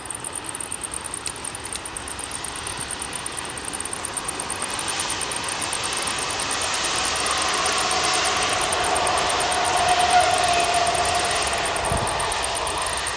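Two coupled SNCF Z2 electric multiple units passing on the line. Rolling noise with a steady whine builds up, is loudest about ten seconds in, then begins to fade. Insects buzz high in the background.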